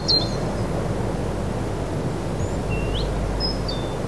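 A bird calling in short high whistled notes, some stepping or sliding down in pitch, over a steady low rushing outdoor noise.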